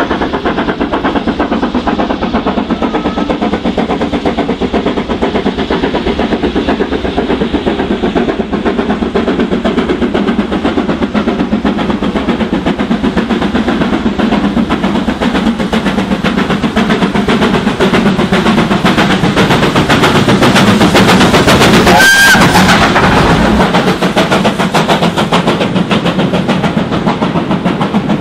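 BR Britannia Class 4-6-2 steam locomotive No. 70000 'Britannia' labouring up a steep 1 in 60 bank under a heavy load, its chimney giving a rapid, unbroken chatter of exhaust beats. The noise grows to its loudest as the engine passes close by about three-quarters of the way through, with a brief high note at the peak.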